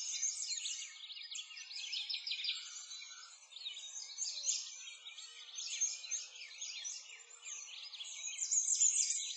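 A dense chorus of small birds chirping and twittering, many quick high calls overlapping without a break.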